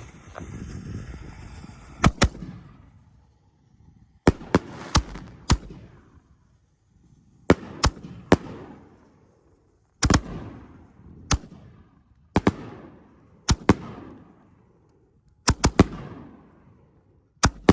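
Aerial fireworks bursting: about twenty sharp bangs at irregular intervals, often in quick twos and threes, each trailing off in a rolling echo.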